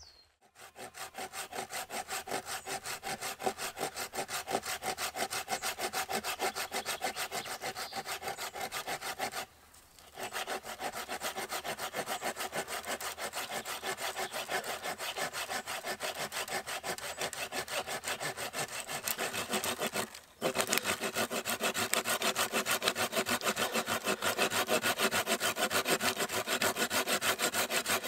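Hand saw cutting through a wooden branch in quick, even back-and-forth strokes, pausing briefly twice.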